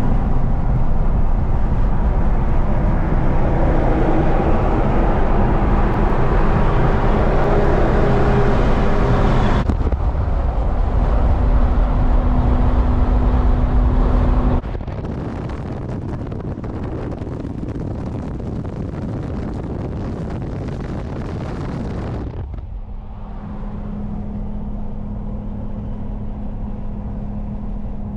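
Steady road and engine noise of a moving car, with a low hum, heard from inside the car. The noise changes abruptly a few times and drops in level about halfway through.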